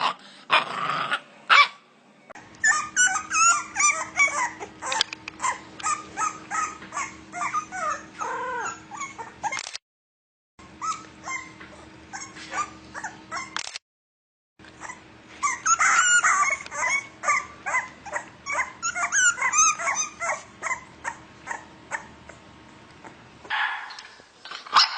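Puppies whimpering and yipping in quick runs of short, high-pitched calls, several a second, broken twice by a brief cut to silence.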